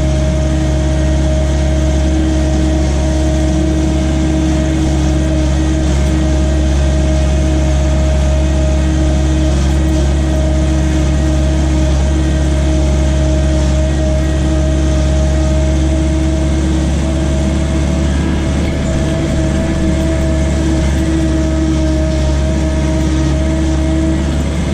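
John Deere skid steer engine running steadily at a constant speed, heard from the operator's seat: a deep, even drone with two steady tones held above it.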